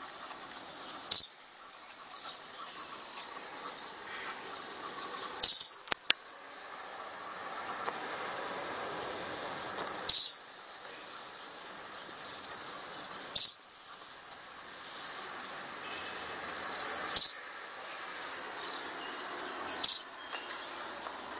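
Small birds chirping: six loud, short high calls a few seconds apart, with softer chirps in between.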